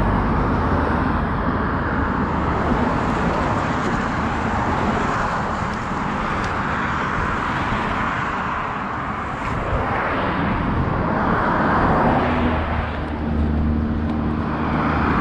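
Road traffic passing on a highway: a steady rush of cars going by that swells and fades as each passes, with a lower engine hum growing near the end.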